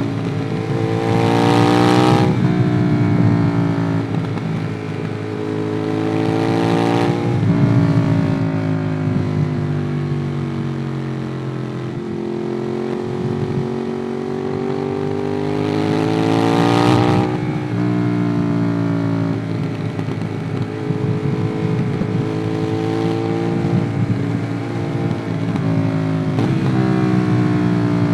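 Ducati Monster 821's 821 cc L-twin engine through a QD Twin Gunshot aftermarket exhaust, heard from the rider's position while riding. The engine pulls up through the revs and drops sharply in pitch at each upshift: twice near the start, and again after a longer pull in the middle. After that it eases off with a falling note, then picks up again near the end.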